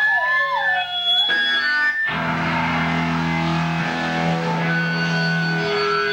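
Live band playing loud, distorted electric guitar music. It opens with sliding, wavering high notes, then the full band with bass comes in about two seconds in.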